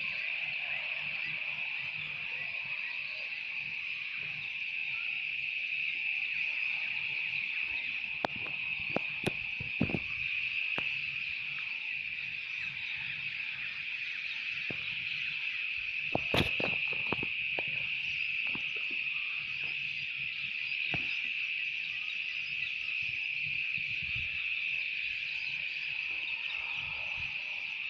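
Steady chorus of insects, a continuous high buzz that holds at one pitch throughout. A few sharp clicks or knocks cut in about a third of the way through and again just past the middle.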